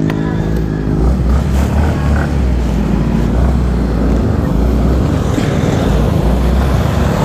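Motorcycle engine running as it pulls away and rides along the road, with heavy, uneven wind rumble on the microphone from about a second in.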